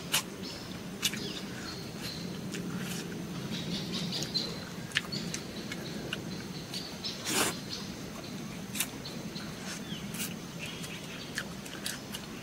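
A person eating: chewing and mouth smacks with scattered short, sharp clicks. Birds chirp faintly in the background.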